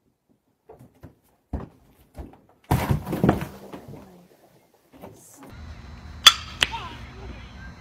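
Thumps and a short voice sound as a woman tips out of a headstand and falls onto a carpeted floor. After the cut, open-air background noise comes in, then one sharp crack of a bat hitting a softball and a second, lighter knock about a third of a second later.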